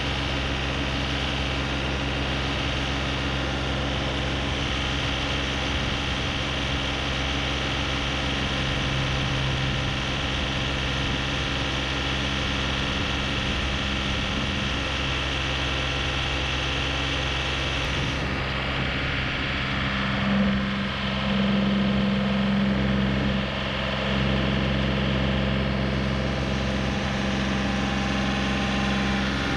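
John Deere 3038E compact tractor's three-cylinder diesel engine idling steadily. About two-thirds of the way through, the engine note rises and gets a little louder as the front-end loader is worked to lift the bucket.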